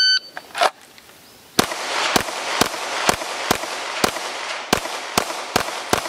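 A shot timer beeps once, and about a second and a half later a pistol fires ten shots at a steady pace of roughly two a second, each shot followed by a short ringing tail.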